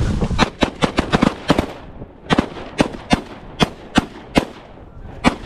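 A rapid volley of shotgun fire from several hunters shooting at geese over decoys: about seventeen sharp shots, packed close together in the first two seconds, then spaced about half a second apart, with a last shot near the end.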